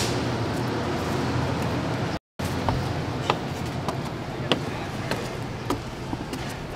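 Footsteps on wooden stair treads: a row of sharp knocks a little under two a second, over steady street noise.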